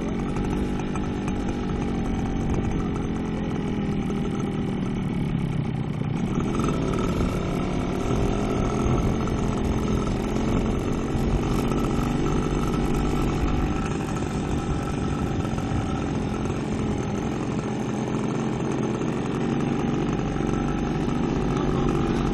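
Small two-stroke motorcycle engine running under way. Its note sags about five seconds in, then climbs again and holds steady.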